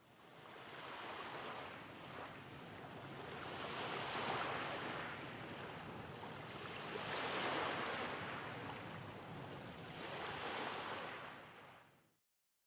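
Waves washing in, the surf swelling and falling back about every three seconds. It fades in at the start and stops shortly before the end.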